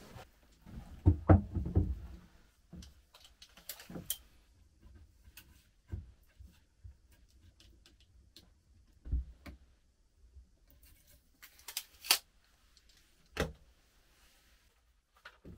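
Handling sounds of foam sleeping pads and a light wooden batten on a plank bunk and plank floor: a cluster of low thuds about a second in, then scattered knocks, taps and a few sharp clicks with pauses between them.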